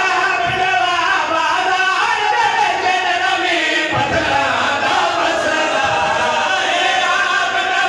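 A group of men chanting a noha (Shia lament) together through microphones and a PA system. A few low thumps come through the chanting, about half a second, four seconds and six seconds in.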